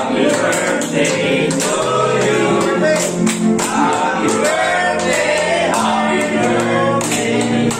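A group of voices singing a song together, with sharp claps on the beat.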